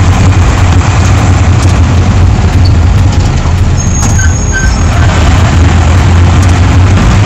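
Mercedes-Benz LO-812 minibus's diesel engine running with a steady low drone, together with road noise, heard from inside the bus as it drives along.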